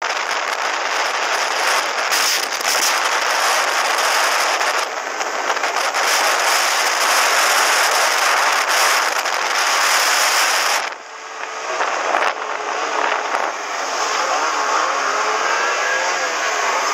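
Snowmobile engines running at speed under heavy wind rush on the microphone. About 11 seconds in the wind noise drops, and an engine note is heard rising and falling as the throttle changes.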